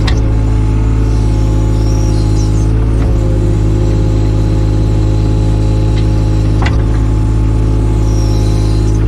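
Takeuchi TB216 mini excavator's diesel engine running steadily under work, with a few sharp knocks from the machine about three seconds apart and brief high squeaks.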